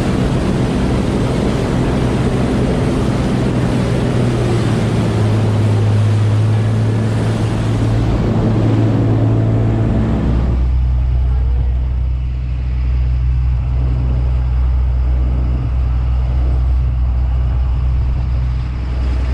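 Small boat's engine running at speed through choppy water, with heavy rushing wind and water spray over the hull and microphone. About ten seconds in the rushing noise drops away, leaving a steady low engine hum as the boat lies alongside the trawler.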